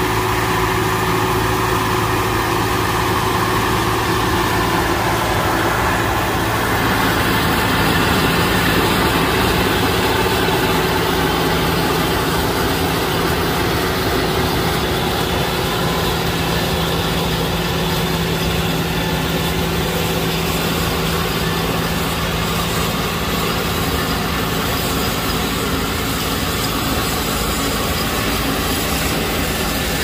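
Loud, steady din of a John Deere tractor engine pulling a poultry-house litter de-caker, mixed with the clatter of its conveyor lifting the chicken litter and shaking out the hard, caked pieces.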